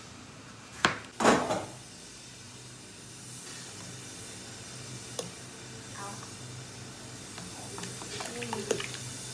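A knife cuts through a tomato onto a plastic cutting board, giving a sharp knock and then a louder short scrape about a second in. After that comes a low steady hum with a few light clicks, and near the end a cluster of small knocks and soft plops as the tomato pieces are slid off the board into a pot of broth.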